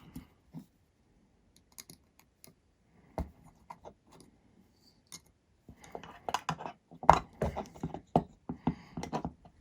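Hand tool working screws loose on a hexacopter frame: scattered small clicks and scrapes of metal on metal, then a busy run of clicking and scraping from about six seconds in.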